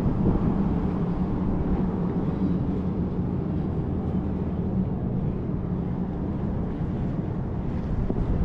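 Steady low engine drone with a constant hum.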